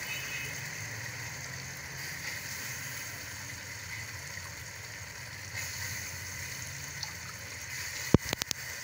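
Tomato-onion masala sizzling and bubbling steadily in a cooking pot as soaked split moong dal is added to it. Near the end, a few sharp knocks.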